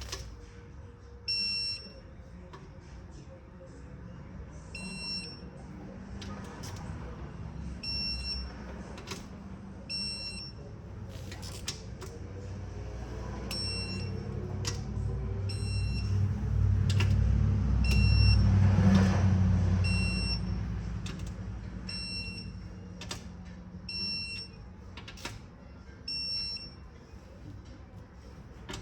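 Electronic torque wrench beeping in short, repeated pips, one about every two seconds, with light clicks between them, as the camshaft bearing cap bolts are tightened to 9 ft-lb. A low rumble builds and fades through the middle.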